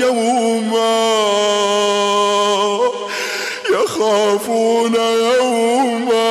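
A man's voice chanting Quran recitation in a long drawn-out melodic note. About three seconds in he breaks off to take a breath, then goes on into another long held phrase with small ornamental turns.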